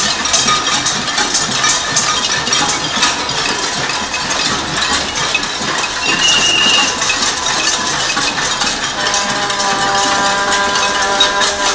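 A crowd banging pots and pans in a casserole protest, a dense, unbroken clatter of metal strikes. A brief high tone sounds about six seconds in, and a held pitched tone joins near the end.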